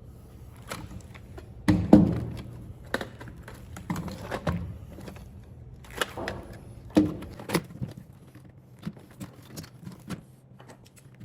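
Irregular knocks and clicks of plastic and metal parts being handled while a UPS is taken apart, loudest about two seconds in and again about seven seconds in, over a faint steady low hum.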